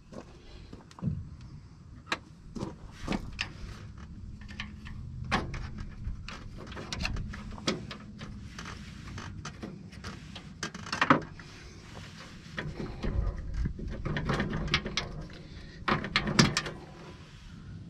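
Irregular metallic clicks and knocks as a bolt and bracket hardware on a truck's intercooler mount are handled and worked loose by hand, with a few sharper knocks near the middle and toward the end.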